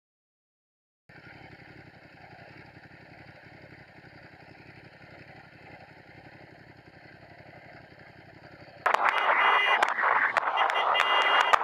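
Motorcycle engine idling, heard muffled, starting about a second in. About nine seconds in it gives way abruptly to much louder wind and engine noise with clicking, and a steady high beeping tone near the end.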